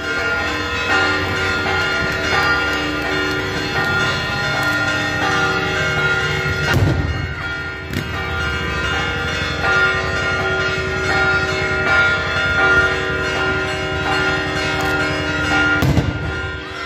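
Church bells ringing in a continuous festive peal, with two loud bangs of daytime aerial fireworks bursting overhead, about seven seconds in and near the end.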